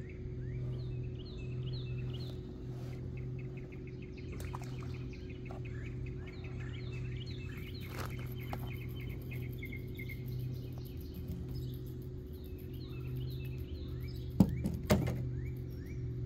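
Small birds chirping over and over, with a steady low hum underneath. Two sharp knocks come near the end.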